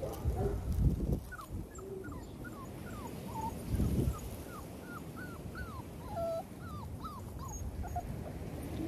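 XL pitbull puppies whimpering and yipping: a string of short, high, falling whines, one after another. Low buffeting of wind on the microphone comes about a second in and again around four seconds in.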